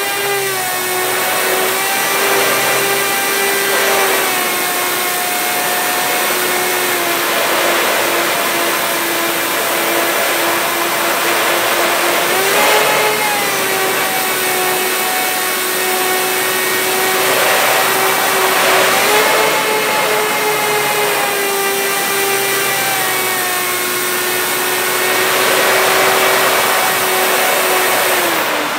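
Electric motors and propellers of a radio-controlled B-25 model plane running at high throttle in flight, a steady whine that steps up and down a little in pitch as the throttle is moved. Now and then wind rushes over the onboard microphone.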